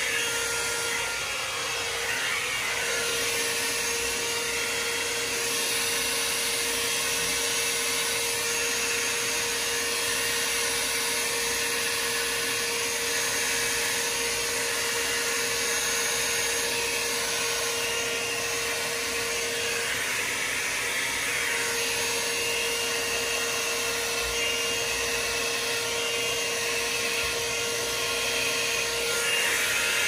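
Handheld hair dryer running steadily: rushing air with a steady whine, blowing wet acrylic paint across a canvas. The whine drops out briefly twice, about 2 seconds in and about 20 seconds in.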